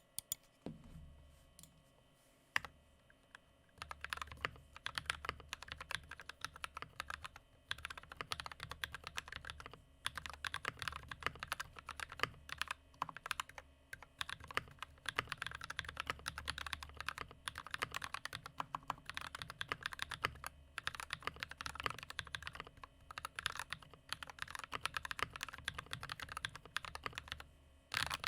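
Typing on an RK68 mechanical keyboard fitted with Tecsee Carrot linear switches lubed with Krytox 205g0, with Holee-modded stabilizers and a tape mod. A few single keystrokes come first, then fast continuous typing from about four seconds in, broken by a few short pauses.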